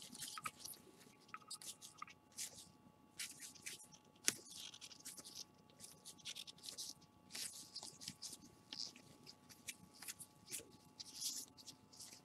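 Faint, quick swishes and ticks of a stack of trading cards being slid and flipped through by hand, with one sharper snap about four seconds in.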